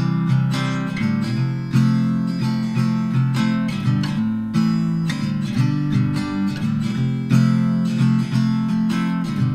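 Background music of a strummed acoustic guitar, playing steady chords.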